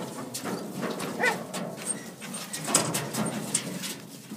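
Working kelpie barking several times in short sharp bursts at sheep packed in a metal yard race, with the sheep clattering against the steel panels.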